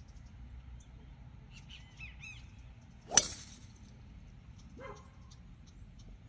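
A single sharp crack of a golf club striking the ball, about three seconds in and by far the loudest sound, with birds chirping around it.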